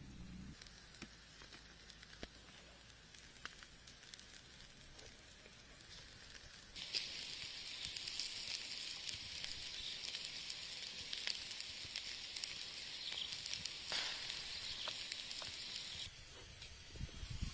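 Food frying in hot fat, a steady sizzle with small scattered crackles; the sizzle grows louder about seven seconds in and falls back near the end.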